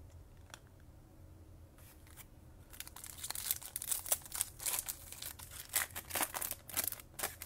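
A Topps Chrome trading-card pack's foil wrapper being torn open and crinkled by hand: a run of crackling rustles starting about three seconds in.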